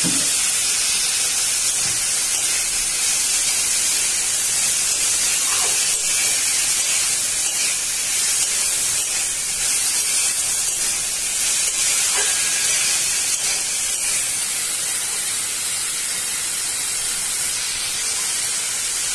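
Sliced onions and green chillies frying in oil in a steel kadai: a steady sizzle, with a spatula stirring them now and then.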